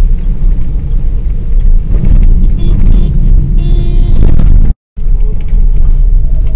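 Loud, steady low rumble of a car driving on a wet road, heard from inside the car. A brief higher-pitched tone sounds partway through. The sound cuts out completely for a moment near the end and then resumes.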